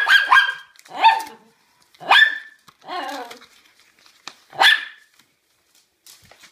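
Small dog barking excitedly: about six sharp, high-pitched barks in quick succession over the first five seconds, then stopping.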